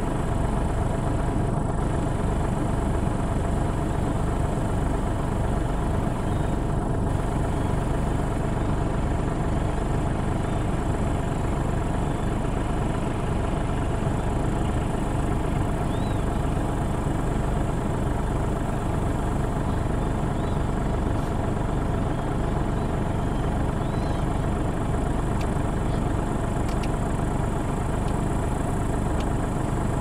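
John Deere 7250R tractor's six-cylinder diesel running steadily under load while pulling a Claas Rollant 375 RC round baler through a hay windrow, the baler's pickup and chamber working along with it.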